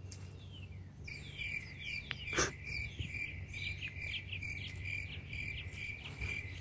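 Crickets chirping in a steady high trill, starting abruptly about a second in, with one brief scrape about two and a half seconds in.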